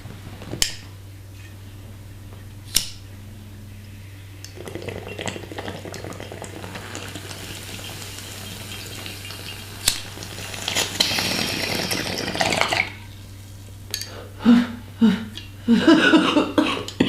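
A couple of sharp clicks, then water bubbling in a bong through a long draw of about eight seconds that grows louder toward its end. It is followed by a series of short, hard coughs near the end.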